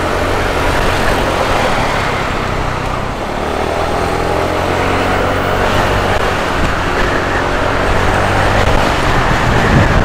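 Motorcycle engine running steadily while being ridden through traffic, under a steady rush of wind and road noise on the microphone.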